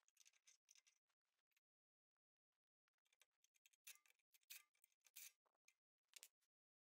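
Near silence broken by faint, scattered clicks of a wrench and metal parts being handled, sparse at first and more frequent in the second half.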